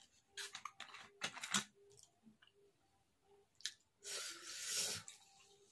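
Plastic soda bottle of Sprite having its screw cap twisted open, with a quick run of clicks and cracks in the first second or so. About four seconds in, the fizzy soda is poured into a glass with about a second of loud fizzing splash.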